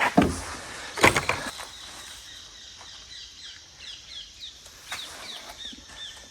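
Two loud rustling thuds in the first second and a half, then a bird calling a fast series of short, falling chirps, about two or three a second, over a steady high hiss.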